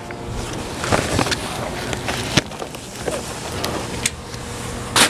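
Black fabric grill cover being pulled off a portable grill, rustling and swishing, with a few sharp clicks and knocks as it catches on the grill.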